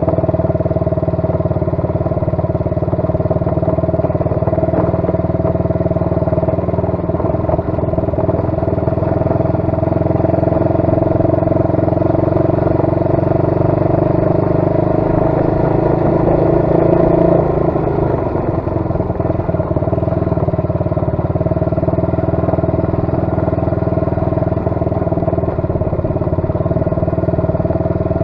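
125cc ATV engine running under way, a steady engine note that climbs gradually through the middle and drops suddenly about two-thirds of the way through as the throttle eases off.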